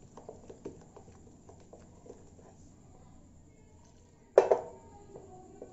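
A wooden spatula stirring thick besan batter in a glass bowl, with light repeated clicks against the glass. Near the end comes a loud sharp clink with ringing as a steel tumbler meets the bowl and water is poured into the batter.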